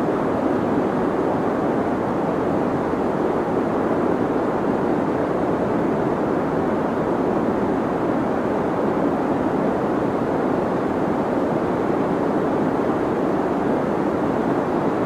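Deep white noise: a steady, unchanging rushing hiss, muffled and deep, with little treble.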